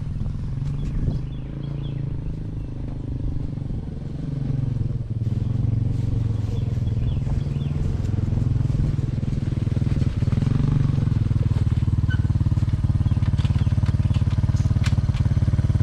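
Engine of a 1986 Honda FourTrax ATV running as it is ridden around, with small changes in engine speed, growing louder from about a quarter of the way in. It is a test ride after the drive chain was shortened by one link and lubed, to check that the chain no longer slaps the frame.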